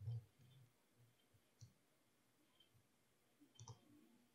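A few faint computer mouse clicks, spaced a second or two apart, with soft low thumps near the start, over near silence.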